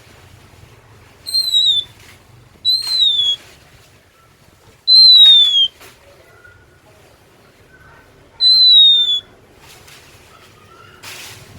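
Oriental magpie-robin (kacer) singing: four loud, clear whistled notes, each under a second and sliding slightly down in pitch, spaced one to three and a half seconds apart, with a few soft, lower notes between them.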